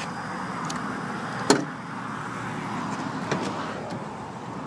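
Dodge Nitro's engine idling with a steady hum under a sharp click about a second and a half in, as the rear door latch is pulled open; a fainter click follows about two seconds later.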